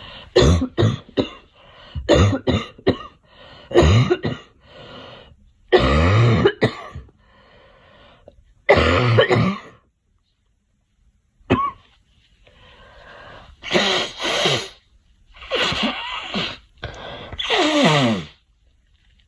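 A girl coughing in repeated fits: quick runs of short coughs at first, then longer, drawn-out coughs with a short pause about ten seconds in. The last cough ends with a falling pitch.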